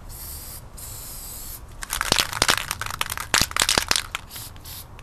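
Aerosol spray paint can spraying: a short hiss, then about two seconds of loud, crackling sputter from the nozzle.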